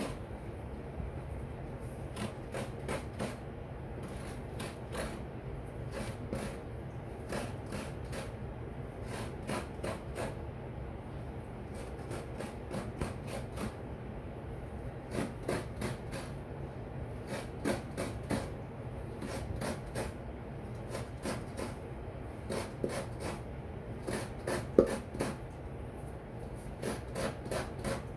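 A coconut half is grated by hand against the serrated blade of a coconut grater stool (kudkuran): runs of quick rasping scrapes, a few a second, broken by short pauses. There is one sharp knock near the end.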